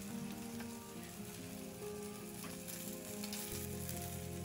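Two eggs and two sausages sizzling and crackling in a stainless steel frying pan, with soft background music of held notes.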